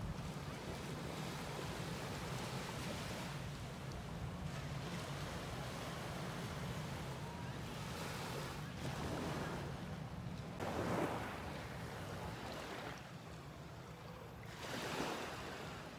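Small waves washing onto a sandy beach, with wind rumbling on the microphone. The wash swells louder twice in the second half.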